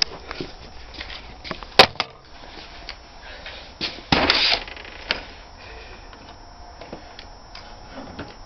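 Tool-handling clicks and knocks as a drill bit is taken out of a cordless drill and a plastic drill-bit case is rattled, with one sharp click about two seconds in and a half-second rattle a little after four seconds.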